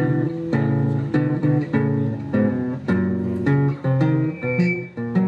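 Acoustic guitar playing a tango accompaniment: plucked notes and strummed chords struck in a steady rhythm.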